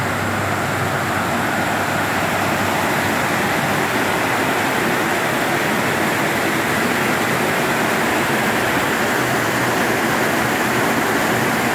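Heavy rain pouring down, a steady dense hiss that grows a little louder after the first couple of seconds.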